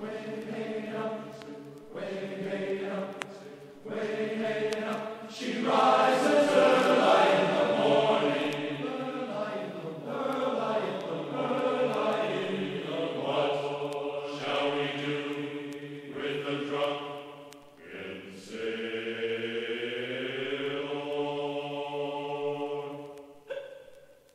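Vocal music: voices chanting in long held notes that move to new pitches every couple of seconds, fading out at the end.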